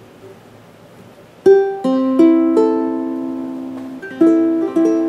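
PONO MPT-E tenor ukulele being played, starting about a second and a half in. Notes are plucked one at a time, a few tenths of a second apart, and ring on together into chords as they decay.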